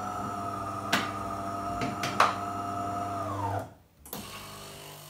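DeLonghi ECAM350.55 bean-to-cup coffee machine running with a steady humming drone and a couple of clicks. The drone winds down and stops about three and a half seconds in. After a brief pause a quieter, lower hum starts as the machine begins what the owner takes for a rinse cycle.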